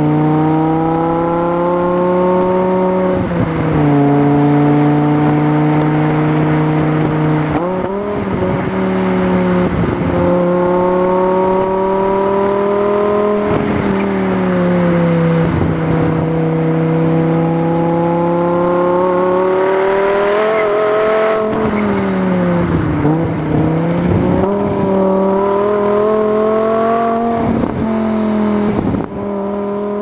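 The Fisker Latigo CS's RD Sport V10 engine and exhaust under way on the road. The engine pitch climbs and eases slowly, then drops sharply several times, about 3, 8, 14 and 23 seconds in, as it shifts gears and lifts off.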